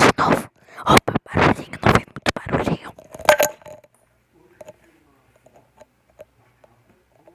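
Slime being squeezed and worked close to the microphone, a quick run of loud sticky clicks and pops. It goes much quieter about three and a half seconds in, leaving only faint scattered small sounds.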